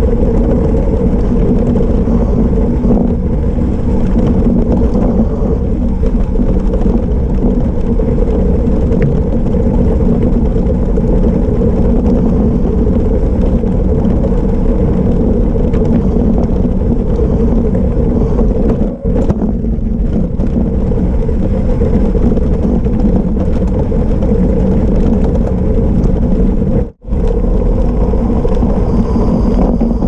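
Gravel bike descending fast on a gravel road, heard through a GoPro: a loud, steady rumble of 700x40C tubeless tyres on gravel and rushing air. The rumble dips briefly twice, the second time almost to silence for an instant near the end.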